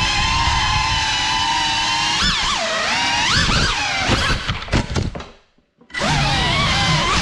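FPV racing quadcopter's brushless motors whining in a steady hover, then swooping sharply up and down in pitch with quick throttle punches and chops during a flip, cutting out almost completely for about half a second a little past halfway before the steady whine returns.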